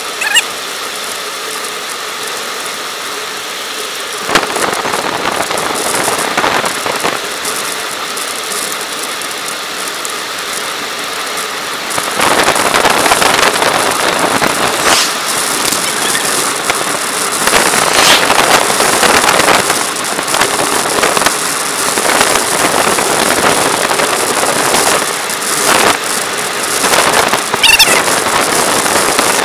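Wind rushing over the microphone and road-bike tyres hissing on asphalt while riding at speed, louder from about twelve seconds in. A bicycle freewheel ticks briefly near the end.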